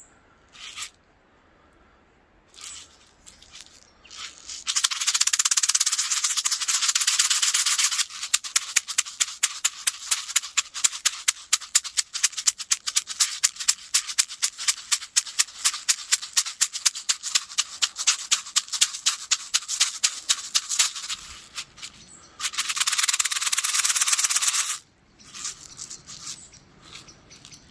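Deerskin and feather rattle being shaken. A fast continuous rattle a few seconds in gives way to steady rhythmic shakes, about four a second, then another fast continuous rattle and a few soft rustles near the end.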